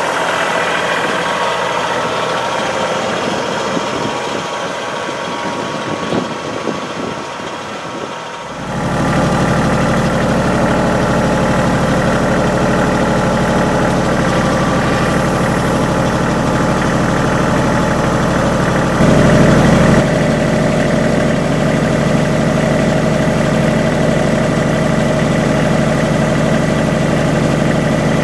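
Kubota L3010 HST compact tractor's three-cylinder diesel engine running steadily. About a third of the way in it becomes louder and fuller in the low end, with a brief louder stretch of about a second around two-thirds through.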